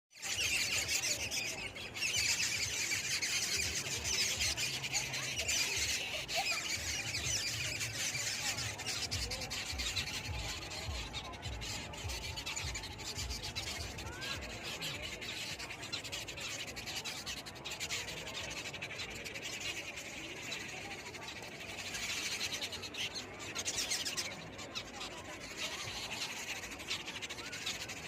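A flock of small birds chirping together in a dense, continuous chorus of high chirps. A low rumble comes underneath partway through.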